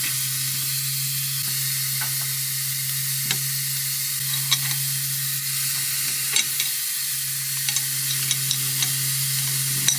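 Steady hiss over a low, even hum, with scattered light clicks and taps, about a dozen of them and spaced irregularly.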